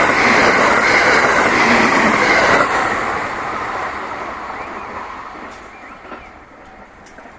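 A JR West electric train running past on the rails at speed, with wheel-on-rail noise. The noise drops sharply about two and a half seconds in as the end of the train goes by, then fades away steadily.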